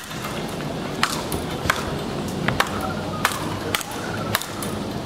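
Speedball rally: two players' rackets striking a ball tethered to a central pole, with about eight sharp hits in quick succession, roughly one every half-second to second.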